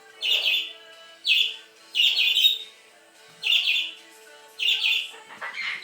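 Amazon parrot vocalizing in six short bursts, roughly one a second.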